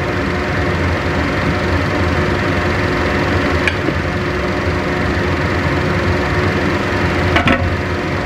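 Steady whirring hum of an induction cooktop's cooling fan running under a simmering wok. A light tap comes a few seconds in, and near the end a metal-rimmed glass lid clatters onto the stainless wok.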